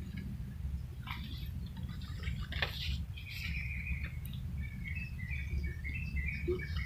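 Birds chirping in a run of short, repeated high calls from about halfway through. Underneath are footsteps and rustling leaves as someone pushes through forest undergrowth, over a low steady rumble.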